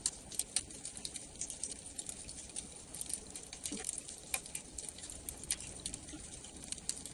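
Paperback book being held and handled on a bed: faint, irregular small clicks and light rustling of the cover and pages.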